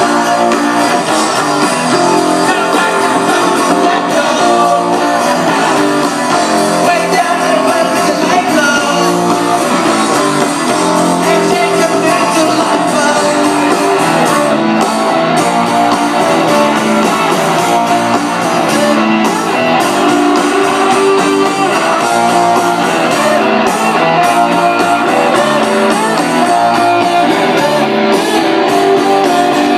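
Live rock band playing through a concert PA: strummed guitars over bass and drums, with a voice singing.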